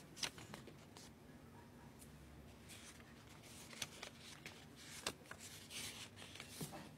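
Faint paper rustling with scattered soft clicks, as pages are handled and turned, over quiet room tone.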